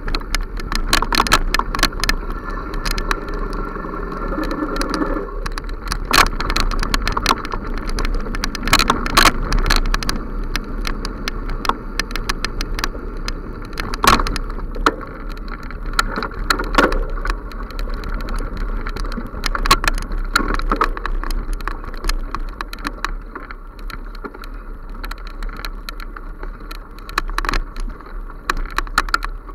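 Bicycle rattling and bumping along a dirt forest trail: many irregular knocks and clicks over a steady low rumble and rush of tyre noise.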